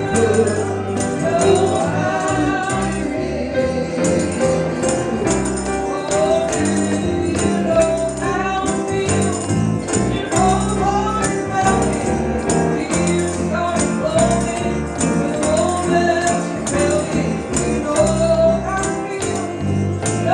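A song with a singing voice over a band: a held bass line and a steady beat with tambourine.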